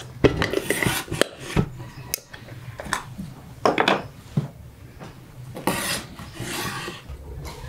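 Kitchen knife knocking and scraping on a wooden cutting board as sliced tomatoes are swept off it into a wooden bowl. Several sharp knocks in the first couple of seconds and again around four seconds, then a longer scrape of the blade across the board near six seconds.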